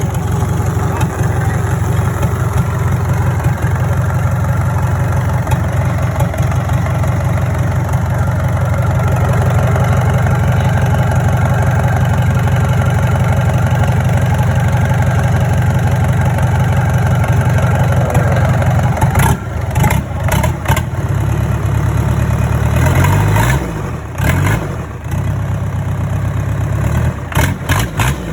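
Freshly rebuilt Hyundai D4DC diesel engine running steadily. About two-thirds of the way through there are a few sharp knocks, and near the end the engine note wavers and changes speed.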